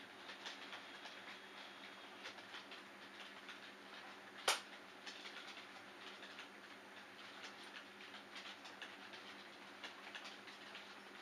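Model trains running on a model railway layout: faint, irregular wheel clicks over the track under a steady low hum, with one sharp click about four and a half seconds in.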